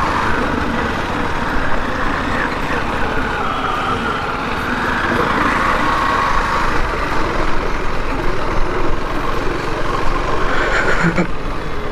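KTM 390 Duke's single-cylinder engine running as the bike pulls away at low speed and shifts up from first to third gear. Steady wind and road noise from the tyres on a rough dirt road run through it.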